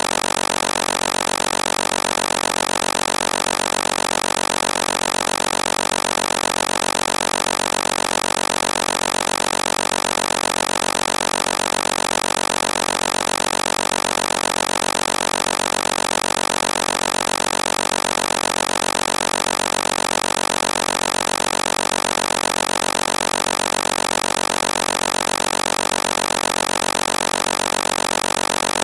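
Synthesized engine sound imitating a Toyota 2JZ straight-six at idle, played as a looping sequence of pitched pulses in a phone sound app. It runs steadily and evenly, with no revving.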